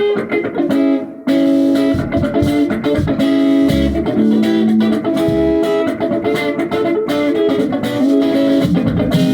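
Guitar music: plucked strings with bass notes. There is a brief break about a second in.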